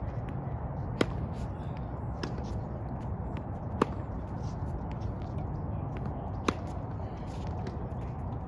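Tennis ball struck by a racket in a practice rally on a hard court: three sharp pops about two and a half seconds apart, with fainter ball clicks between them, over a steady low rumble.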